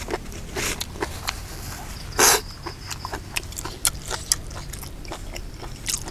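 A person eating Isan raw beef: chewing with many short clicks and mouth noises, and one louder noisy burst about two seconds in.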